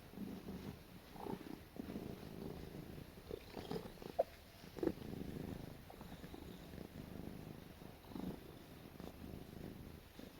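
Domestic cat purring while being petted, a continuous low rumble, broken by a couple of short sharp sounds about four and five seconds in.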